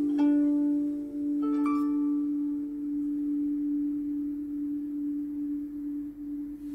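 Background music: a steady low drone, with a few bell-like notes struck in the first two seconds that ring on and fade.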